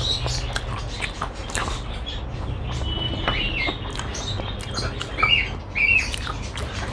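Close eating sounds: fingers working rice on a plate and wet mouth clicks of chewing, with a few short high chirping squeaks about three, five and six seconds in.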